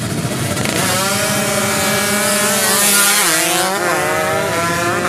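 Two drag-racing motorcycles launching and accelerating hard, the engine pitch climbing and dropping back at each gear change, loudest as they pass about three seconds in.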